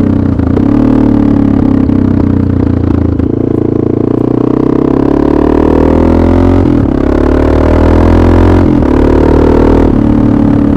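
Honda NX650 Dominator's single-cylinder four-stroke engine running through an aftermarket Dominator exhaust silencer while the bike is ridden. The engine note climbs as it accelerates, then drops sharply about two-thirds of the way in and again briefly near the end, as at gear changes.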